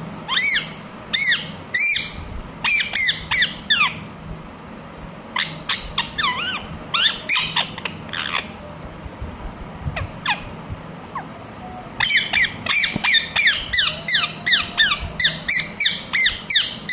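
Ringneck parakeet giving shrill squawking calls in short bunches, broken by gaps, then a fast unbroken run of calls over the last few seconds.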